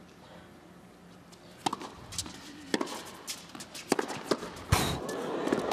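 Tennis rally: a string of sharp pops as the ball is struck by rackets and bounces on the court, the loudest hit about three-quarters of the way in. Crowd noise swells near the end as the point finishes.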